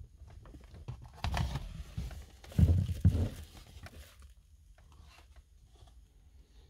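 Plastic dashboard parts and the touch-monitor assembly being handled: a stretch of rustling and scraping starts about a second in and lasts about three seconds. Two sharp knocks near the middle are the loudest sounds.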